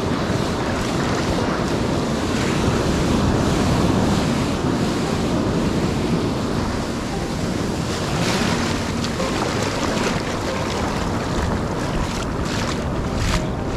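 Ocean surf breaking on a beach, with wind buffeting the microphone: a continuous heavy rushing that swells about halfway through, with a run of short scratchy noises near the end.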